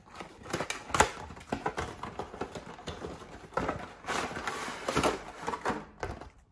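A shaver's retail box being handled and opened: a run of clicks and taps with a sharp knock about a second in, then rustling, sliding scrapes of the packaging from about three and a half to five seconds in.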